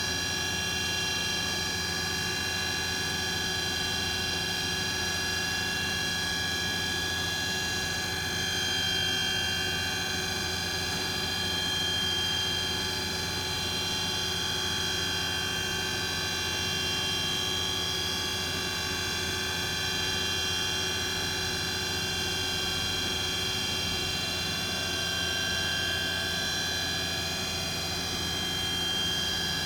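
Hartford Mighty Viper VMC-2100 vertical machining center running a program: a steady machine whine made of many fixed high tones over a low hum, swelling slightly now and then.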